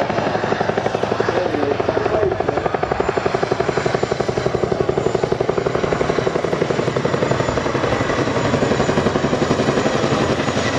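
Tandem-rotor Chinook helicopter flying a low pass, its rotor blades beating in a fast, steady chop that stays loud throughout.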